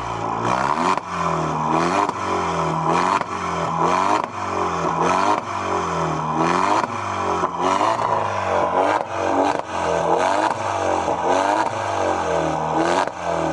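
Straight-piped, catless Alfa Romeo Giulia's turbocharged four-cylinder engine, heard close to the tailpipe, revved in over a dozen quick blips at standstill, the pitch rising and falling about once a second. A limiter holds the parked car below about 3,500 rpm.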